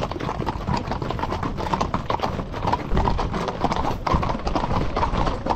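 Hooves of many horses clip-clopping on a paved road as a line of riders walks past close by, a dense, irregular run of hoofbeats.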